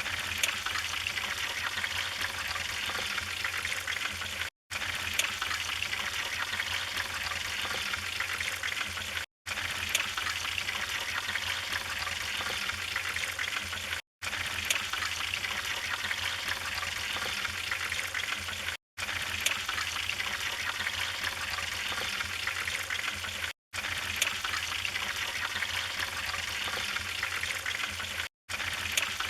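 Wood fire burning in a fireplace: a steady hiss with scattered crackles and pops. Brief gaps of dead silence come about every five seconds.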